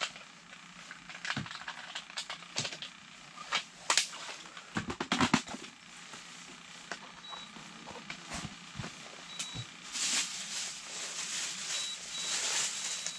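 Clicks and taps from a hand working a small electric wakasagi (smelt) reel on its stand to jig the line, with a quick cluster of them about four to five seconds in. A few faint high beeps and a rush of hiss come in the last few seconds.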